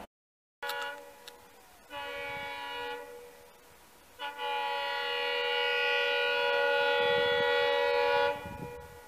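Indian Railways locomotive horn sounding three blasts as the locomotive approaches. There are two short blasts in the first three seconds, then a long one of about four seconds.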